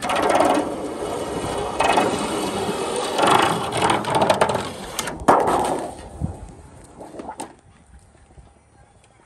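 Hand slitter rolling along the rail of a portable sheet-metal brake, slicing a white trim-coil sheet: a loud, rough rolling and rasping noise for about five seconds that ends in a sharp knock.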